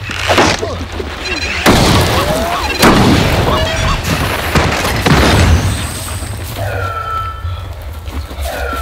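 Several loud booms, each sudden and loud, a blast kicking up dust, over background music with a low pulsing beat.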